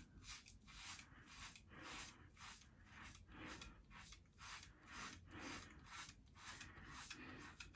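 Razor shaving through lathered stubble: faint, short scraping strokes repeated about three times a second.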